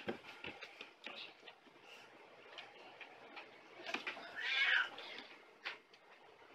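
Calico cat giving one loud, drawn-out meow about four and a half seconds in, with a few soft knocks of movement around it.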